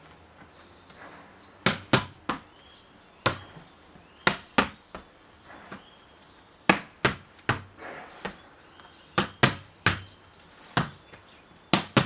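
A beach volleyball being hit with the hands and bouncing off a wall in a rally. There are about fifteen sharp slaps in irregular runs, often two or three in quick succession.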